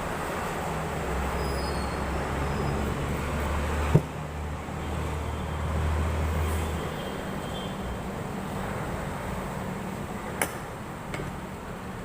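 Steady background traffic noise with a low engine hum that runs for several seconds and then fades out, and two sharp clicks, one about four seconds in and one near the end.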